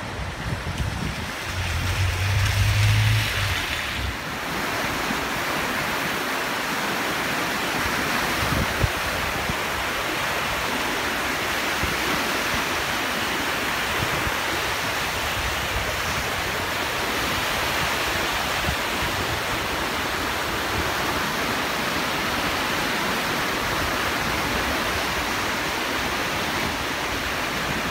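A river in spate: fast, churning floodwater rushing steadily, with wind buffeting the microphone. A brief low hum rises and fades about two to four seconds in.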